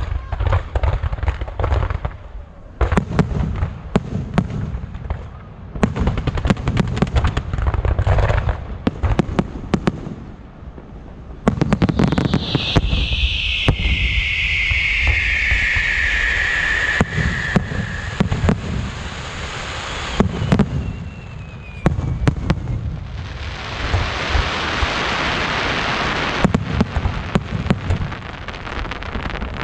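Fireworks display: a dense string of sharp bangs and crackling bursts. About twelve seconds in, a loud whistle falls in pitch over several seconds. Later a thick crackling hiss swells for a few seconds.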